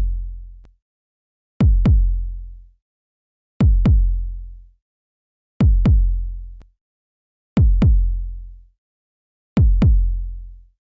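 Deep electronic kick-drum thumps in a slow heartbeat pattern: a pair of thumps about every two seconds, each one dropping sharply in pitch and fading.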